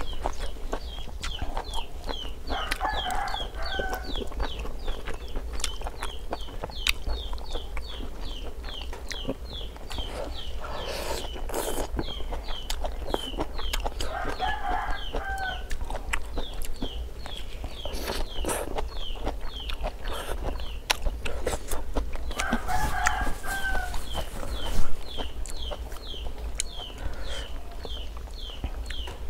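Chickens: a rooster crowing a few times over a steady high peeping, about three peeps a second. Short clicks from eating utensils come in between.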